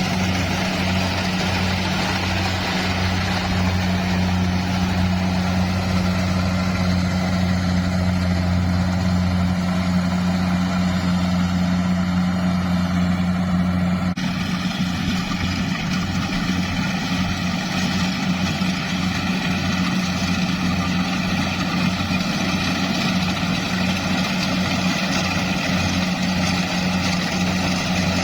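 Engine of a rice combine harvester running steadily with a low, even drone. About halfway through there is a faint tick, after which the low hum pulses a little.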